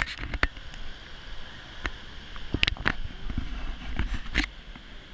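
Outdoor city-alley background: a steady low rumble with scattered sharp clicks and knocks at irregular intervals.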